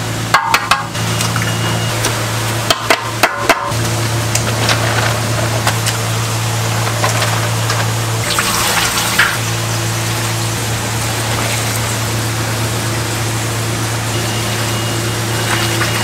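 Pancake batter being made in a large steel bowl: a few sharp taps early on as eggs are cracked, a soft pouring hiss about eight seconds in as flour goes in, then liquid being poured and splashing as the batter is mixed by hand. A steady low machine hum runs underneath.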